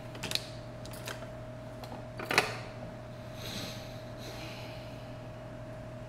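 Hands handling a Flywoo Firefly Baby micro drone: small plastic clicks and knocks, a sharper click a little past two seconds in, then a couple of soft rustles. A steady electrical hum runs underneath.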